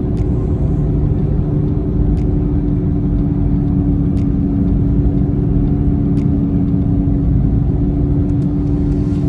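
Steady road and engine drone of a car cruising at highway speed, heard inside the cabin: a low rumble with a constant hum. Faint clicks come about every two seconds.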